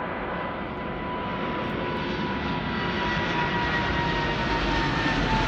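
Emirates Boeing 777-300ER's GE90 jet engines at takeoff power as the airliner climbs out overhead. A steady jet roar grows louder, with a high whine that slowly falls in pitch.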